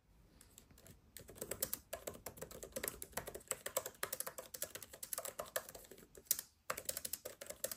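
Typing on the Magic Keyboard for the M4 iPad Pro: a fast, quiet run of key clicks from its scissor-switch keys, starting about a second in, with a brief pause near the end.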